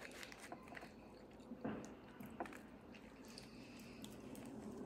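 Faint chewing of a fried sweet-plantain-and-cheese empanada, with a few short mouth clicks.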